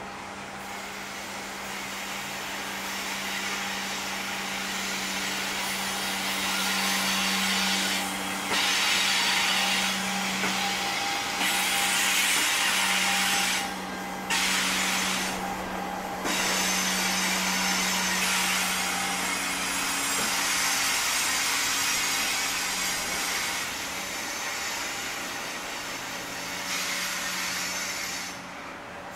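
Loaded coal hopper wagons rolling slowly past on the rails: a steady hiss and rumble of wheels over a low steady hum. The hiss drops out briefly a few times around the middle.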